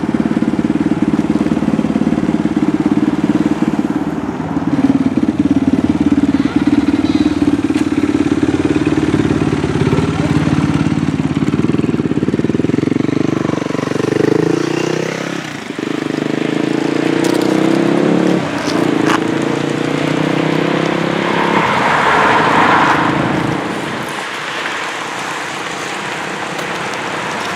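A long procession of motorcycles riding past, their engines making a steady loud mass of sound, with single bikes rising and falling in pitch as they go by.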